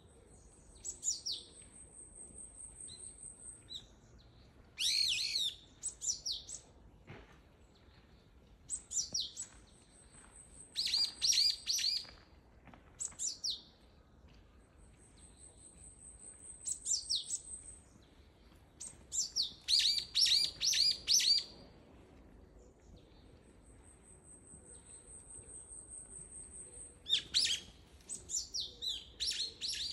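Brown-eared bulbul calling: groups of sharp, shrill, falling calls repeated every few seconds, with the loudest runs about a third of the way in and about two-thirds of the way in. In between, a thin, very high trill is held for two to three seconds, four times.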